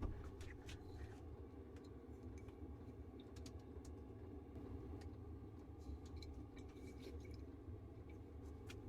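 Faint, scattered small clicks and taps over a steady low hum.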